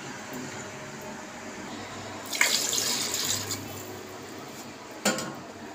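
Water poured from a glass into a pot of masala, splashing for about a second. A single sharp knock comes near the end.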